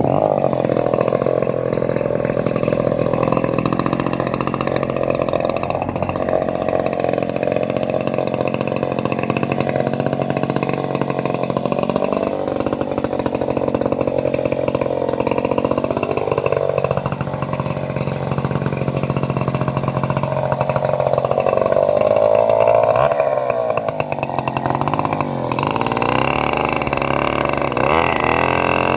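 Homemade bandsaw cutting trembesi (rain tree) wood, its motor running loud and steady. Twice its pitch sags and recovers as the blade takes the load.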